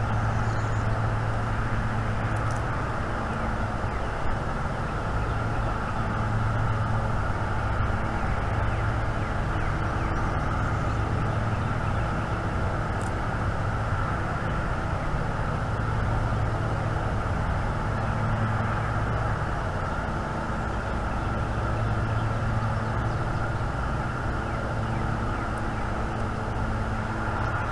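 Steady low rumble and hum that swells and fades gently, with a hiss over it, like distant engine or traffic noise.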